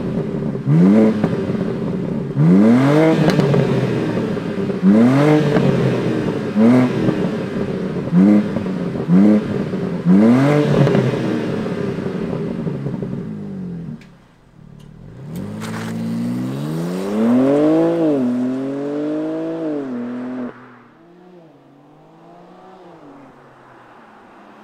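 BMW M2's 3.0-litre twin-turbo inline-six being revved at a standstill: a series of about seven sharp throttle blips. About 15 seconds in, the car pulls away, its engine pitch climbing and stepping down through upshifts. Near the end it fades as the car drives off.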